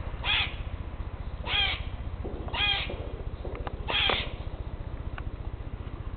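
Eastern grey squirrel giving four harsh, nasal "que" calls about a second apart, a territorial call at rival squirrels.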